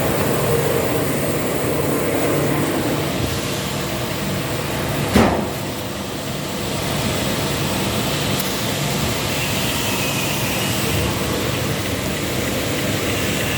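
Toyota Axio hybrid's petrol engine running steadily after a combustion-chamber cleaning meant to cure knocking, with one sharp thump about five seconds in.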